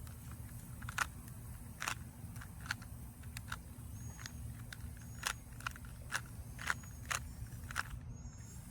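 Rubik's Cube being turned by hand: irregular plastic clicks and clacks as the layers are twisted, a dozen or more over several seconds, over a steady low hum.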